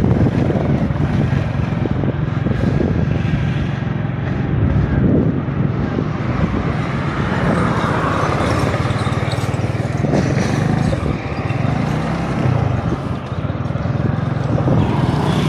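Motorcycle engine running steadily while the bike is ridden along a road, heard from the rider's seat.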